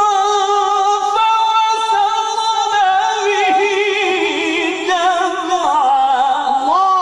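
Male Quran reciter's voice in the melodic mujawwad style, drawing out a verse ending in one long ornamented line. The voice steps between held pitches with a quick vibrato and climbs to a higher note near the end.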